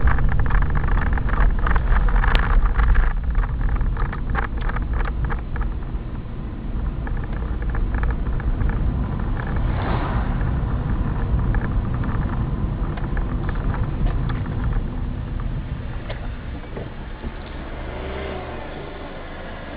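Car engine and road noise heard from inside the cabin while driving, a steady low rumble with scattered light clicks and knocks in the first few seconds. The noise eases off near the end as the car slows for the roundabout.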